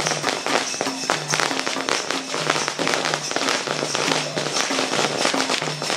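Chhattisgarhi folk drum music for dancing: an even beat of short deep drum notes under dense, sharp strokes, with a steady high jingle that fits the dancers' ankle bells.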